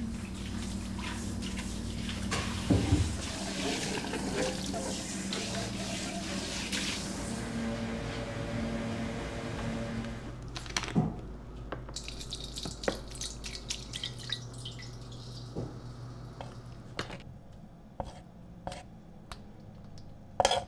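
Liquid poured from a plastic bottle into a large stainless steel mixing bowl: a steady splashing pour for about ten seconds, then a thinner trickle and a few light knocks of bottle and bowl near the end. A steady low hum runs underneath.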